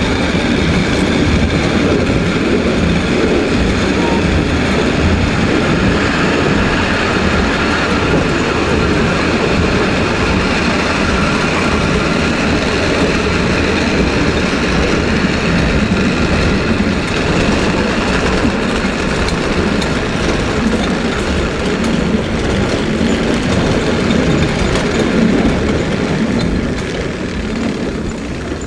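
Car of the Lynton and Lynmouth Cliff Railway, a water-balanced funicular, running along its steep track: a steady rumble and rattle of wheels on the rails, easing a little near the end.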